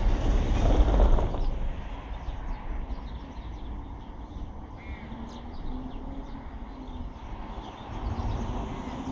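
Outdoor ambience: wind gusting on the microphone, heaviest in the first second and a half, with scattered bird calls in the background.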